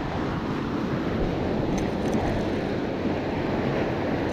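Steady wind rumbling on the microphone, mixed with surf washing against the jetty rocks.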